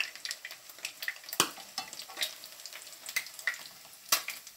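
An egg frying in plenty of hot oil in a wok, sizzling with scattered sharp pops and crackles, the loudest a little over a second in and near the end. Hot oil is being spooned over the egg with a spatula as it fries.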